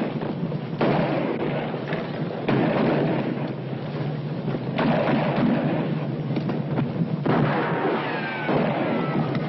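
Four gunshots from a gunfight on an old film soundtrack, about two seconds apart, each with a long echoing tail. Near the end a horse starts to whinny.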